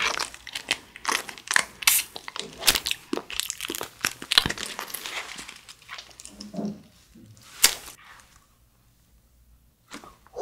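Plastic casing of a fruit-shaped TikTok jelly crinkling and crackling as it is squeezed at the mouth, mixed with wet sucking and chewing of the jelly. The crackles come thick and fast at first, thin out after about six seconds and stop about eight seconds in.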